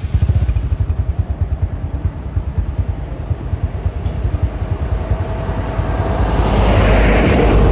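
A motor vehicle driving past on the road, its noise swelling to its loudest about seven seconds in, over a steady low fluttering rumble.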